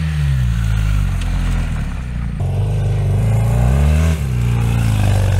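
Large adventure motorcycle engines running, their pitch rising and falling with the throttle, with a change in the engine sound about two and a half seconds in.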